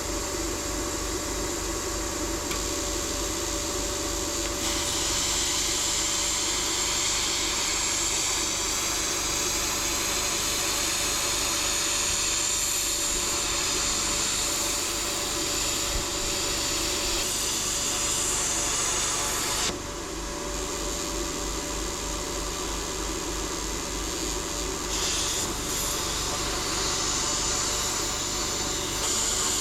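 Small air plasma cutter hissing as it cuts steel. It starts a few seconds in, cuts off suddenly about two-thirds of the way through, and starts again briefly twice near the end. Underneath runs the steady hum of a generator powering an air compressor.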